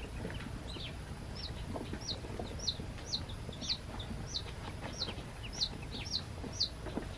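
Newly hatched ducklings peeping. From about a second and a half in, one loud peep that falls in pitch repeats about twice a second, over fainter peeps from the rest of the brood.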